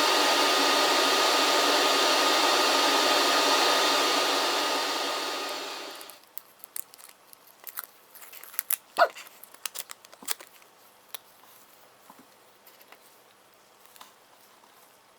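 Hot-air rework station blowing steadily with a faint whine, winding down and stopping about six seconds in; after it, scattered small clicks and taps.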